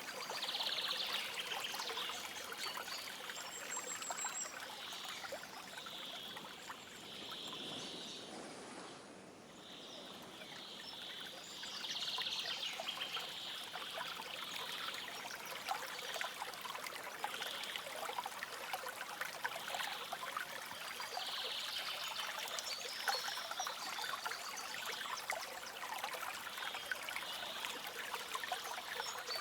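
Stream water flowing and trickling steadily, dipping briefly about a third of the way in. Over it, short high chirps repeat about once a second.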